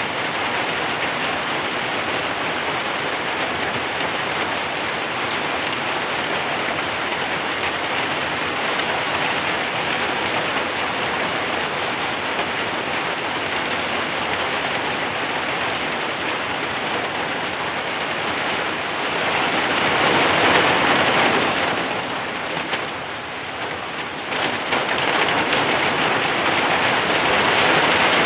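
Steady heavy rainfall, an even hiss of rain on surfaces, that swells louder for a few seconds about two-thirds of the way through and again near the end.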